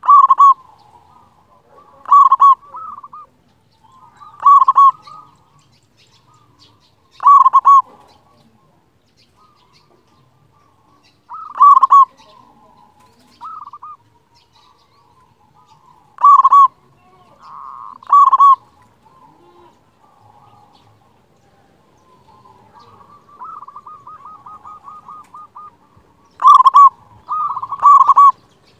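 Zebra dove (perkutut) cooing: short, loud, ringing song phrases repeated every few seconds, with softer coos between them. A quick run of soft, rolling notes comes near the end.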